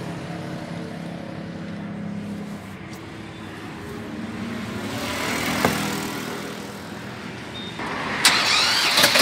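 Sonalika DI 730 II two-cylinder diesel tractor engine idling steadily, swelling a little about five seconds in. A burst of noise comes near the end.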